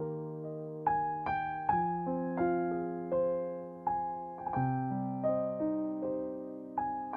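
Background piano music: gentle notes and chords struck one after another, each ringing out and fading.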